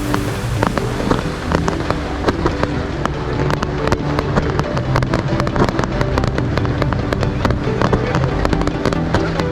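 Fireworks going off in rapid succession: many sharp bangs and crackles close together, over background music.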